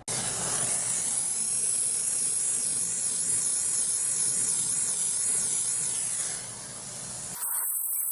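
Brazing torch flame hissing steadily while a copper line joint on a refrigerator compressor is brazed with 45% silver rod. The hiss starts abruptly, dips slightly about six seconds in, and is cut off a little after seven seconds, leaving a thin high hiss.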